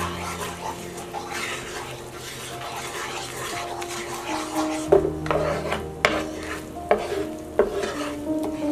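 Wooden spatula stirring and scraping a bubbling butter and hot pepper paste sauce around a nonstick frying pan, the sauce sizzling. The spatula knocks sharply against the pan a few times in the second half.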